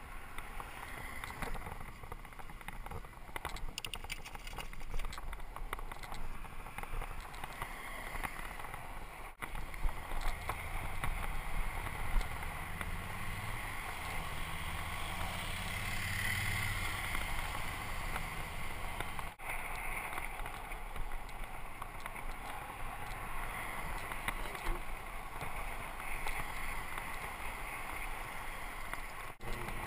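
Steady wind and road noise from a Mongoose bicycle being ridden on asphalt, heard through a bike-mounted GoPro: a rushing hiss with a low rumble that grows louder for a stretch about a third of the way in. The sound cuts out for an instant three times.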